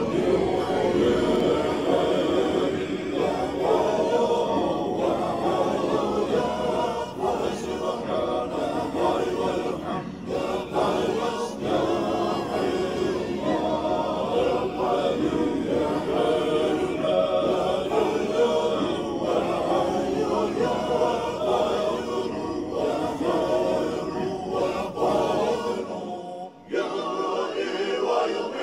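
A group of voices singing together in chorus, continuous and steady in level, with a brief drop about 26 seconds in.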